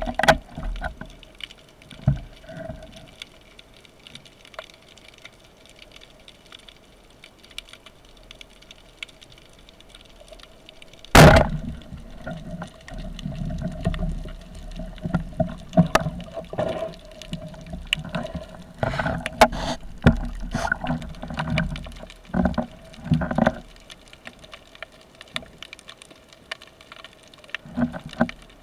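Underwater sound of a band-powered speargun being fired: one loud, sharp crack about eleven seconds in. It is followed by irregular knocks, rattles and rushing water noise as the speared fish is dealt with. A steady faint hum runs underneath.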